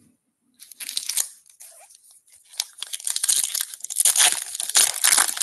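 A 2024 Topps Series 1 baseball card pack's wrapper being torn open and crinkled by hand: a crackling rustle that starts about half a second in, eases off briefly, then grows louder through the second half.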